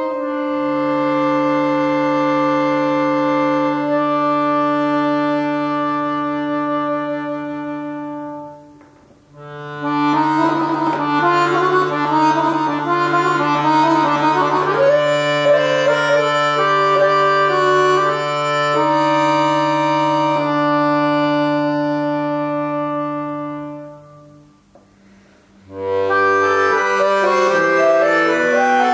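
Solo piano accordion playing a slow piece: long held chords over a sustained low bass note, then a moving melody over the held bass. The sound fades away twice, about nine seconds in and again near the end, before the instrument comes back in.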